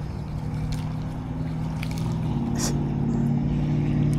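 A motor running steadily, its note stepping up slightly a little over two seconds in, with a few faint ticks over it.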